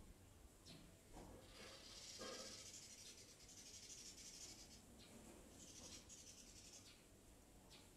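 Near silence, with a faint high hiss that swells and fades twice.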